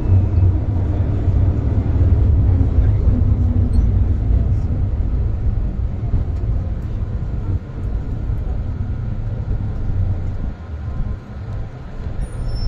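Loud, thunder-like low rumble from inside an MTR Island Line M-Train (CM-Stock) car as it runs. The rumble eases and turns uneven in the last few seconds.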